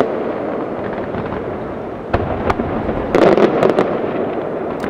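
Aerial fireworks display: continuous crackling with sharp bangs about two seconds in, then a loud cluster of rapid reports around the three-second mark.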